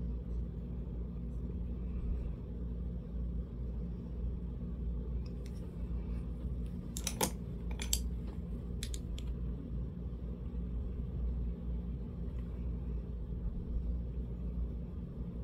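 Steady low background hum, with a handful of light clicks and taps in the middle, as of small objects being handled.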